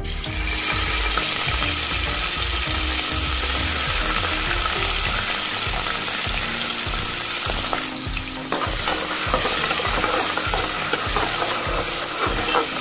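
Raw prawns sizzling loudly in hot oil in a metal pot. The sizzle starts as they are dropped in, holds steady with constant crackling, and a metal spoon stirs and knocks against the pot near the end.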